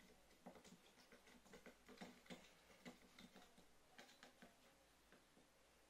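Wooden mixing stick stirring coloured water in a small cup, making faint, irregular clicks as it knocks against the cup's sides; the clicks thin out near the end.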